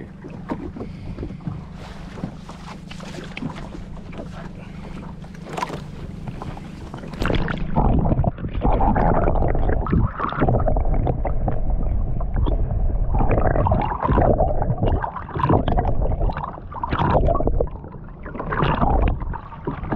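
Boat underway with a steady low hum and light water noise; about seven seconds in the sound turns muffled and much louder, with irregular rushing and sloshing water, as heard through a camera held underwater.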